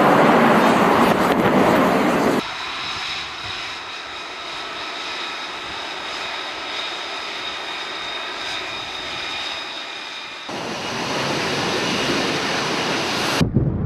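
Military jet engines. A loud jet roar cuts off abruptly after about two seconds into a quieter, steady high-pitched jet whine, like an F-35B taxiing on deck. Near the end comes a louder rushing jet roar.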